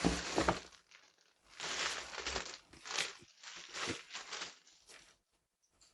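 Crinkly packaging being handled and crumpled by hand, in several irregular rustling bursts that stop about five seconds in.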